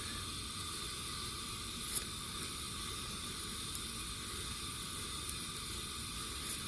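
A pressurised burner on a running stove giving a steady hiss, with a few faint clicks about 2, 3.7, 5.3 and 6.6 seconds in.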